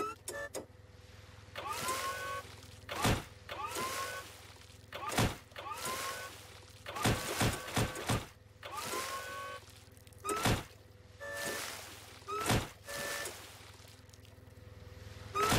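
Cartoon forklift driving forward again and again with a short rising motor whine, each run ending in a heavy thud as its forks ram into a beached whale's body. About five impacts, two to three seconds apart.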